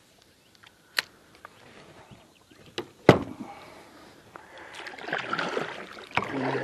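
Sharp knocks of a fishing rod and gear being handled against an inflatable kayak, the loudest about three seconds in. From about five seconds in, water swishes and splashes around the moving kayak.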